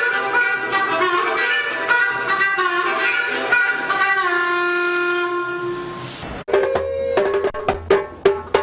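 Saxophone playing a busy melodic line, then holding one long note that fades away. About six and a half seconds in it breaks off and djembe hand drumming takes over with quick, sharp strikes.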